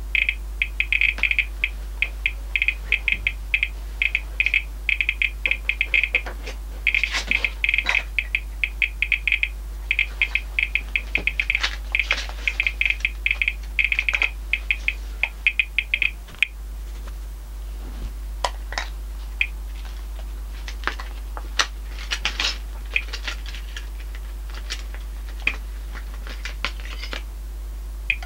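Thermo Scientific RadEye G-10 gamma survey meter clicking for its detected counts: a fast, dense run of high-pitched clicks for about the first sixteen seconds, thinning to scattered single clicks as the dose rate falls from about 5 µSv/h to the 0.06 µSv/h background. A steady low hum runs underneath.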